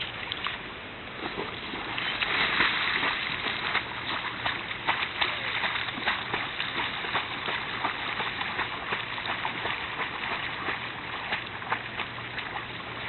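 A dog splashing and paddling through pond water, a steady run of small irregular splashes and sloshing, a little louder in the first few seconds.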